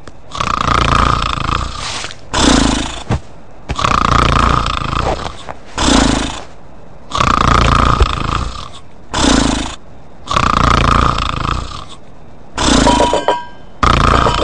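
Exaggerated cartoon snoring in a steady rhythm, about four breaths: each a long rasping snore followed by a shorter, lower puff.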